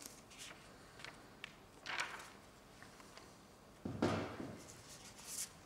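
Quiet handling noises from a man shifting in his seat and moving near the camera: a few light clicks, a short rustle about two seconds in, and a brief low vocal sound from him about four seconds in.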